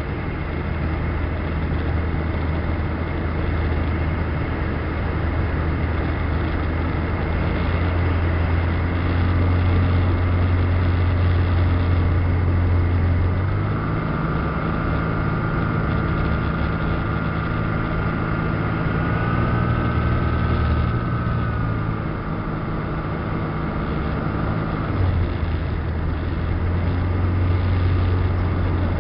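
Ultralight aircraft's propeller engine droning steadily, heard inside the open cockpit with airflow noise. For about ten seconds in the middle its note shifts and an extra higher tone comes in, then it settles back to the earlier note.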